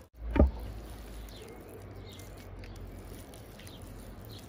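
A single sharp thump just after the start, then faint short chirping calls about once a second over a steady low rumble.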